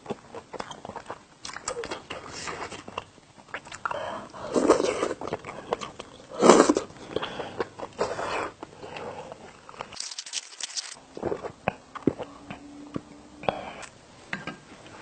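Close-up eating sounds of spicy cheese tteokbokki being chewed: irregular wet chewing and mouth clicks, with a few louder smacking bursts.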